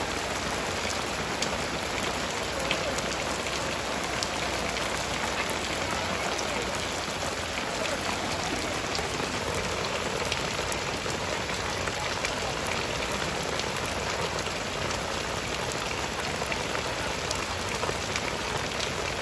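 Steady rain falling on wet, muddy ground, with scattered sharp ticks of single drops.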